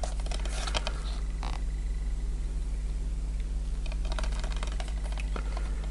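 Plastic Blu-ray case and its wrapping handled in the hands: light crackling and clicking in two bouts, at the start and again about four seconds in, over a steady low hum.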